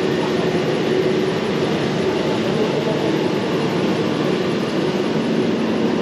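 Wheels of a Wiegand summer toboggan sled rolling along its stainless-steel trough: a steady, dense running noise with a faint hum in it.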